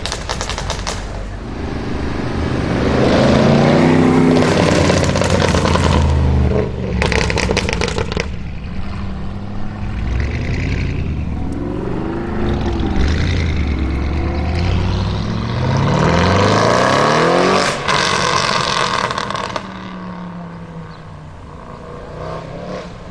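Audi RS6 Avant's tuned twin-turbo V8 through a Capristo exhaust, accelerating hard several times with the engine note rising on each pull. Rapid exhaust crackles and pops come between the pulls, loudest around a third of the way in and just before the last pull eases off.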